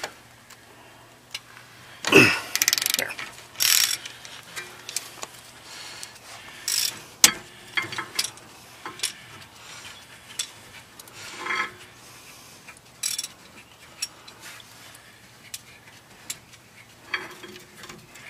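Socket ratchet clicking in short, irregular bursts, with scattered metal clicks and knocks, as the 12 mm bolts of a rear brake caliper are loosened.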